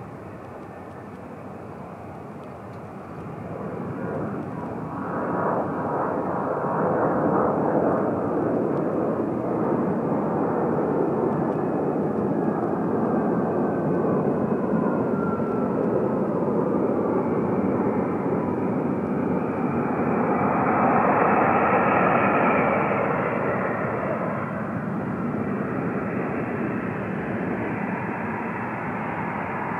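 Twin-engine jet airliner's engines growing louder a few seconds in, with a falling whine as the aircraft passes along the runway; the noise peaks about two-thirds of the way through and then slowly fades.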